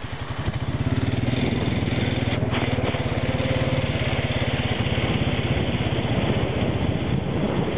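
Tow vehicle's engine running steadily at an even speed, pulling a skimboarder on a rope across the wet sand.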